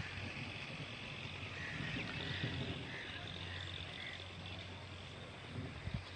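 Steady hiss of heavy rain, with a few faint, short frog calls scattered through it.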